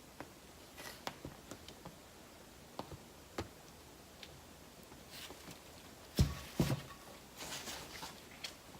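Scattered light clicks and taps from objects being handled, then two knocks close together about six seconds in, followed by a brief rustle.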